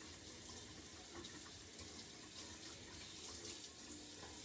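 Kitchen sink tap running steadily, water splashing into the basin.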